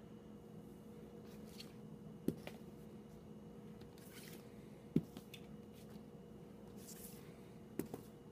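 Shrink-wrapped vinyl LP jackets being handled and flipped forward in a standing stack: soft plastic rustles and three sharp taps, about two seconds in, about five seconds in and near the end, as the sleeves knock against each other.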